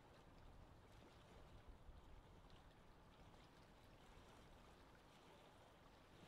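Faint, steady wash of lake water with the low rumble of a gentle wind.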